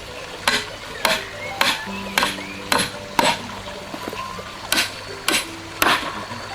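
Sharp knocks or strikes repeating about twice a second, with a short pause about four seconds in, over soft background music.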